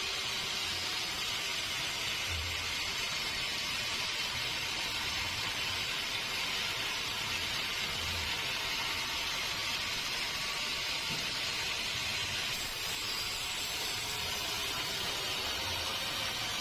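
Steady, even hiss with faint low thuds every second or two.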